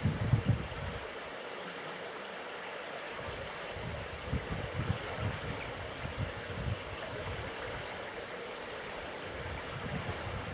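Steady rushing of water, with wind buffeting the microphone now and then, heaviest in the first second.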